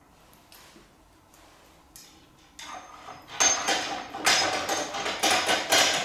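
Rapid metallic clicking and rattling of a nut and washer being run along the threaded screw of a home-made lathe spindle-nose bush extractor by hand. It starts a few seconds in, after a faint stretch.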